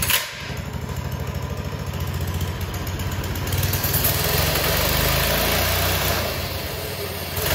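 Doodle Bug DB30 minibike's small single-cylinder engine running steadily at idle with an even putter, just after catching on a pull start. It grows a little louder about four seconds in.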